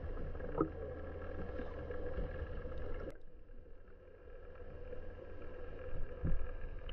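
A boat's engine droning steadily as heard underwater: a muffled hum with several steady tones. A click comes about three seconds in, and the sound is duller after it.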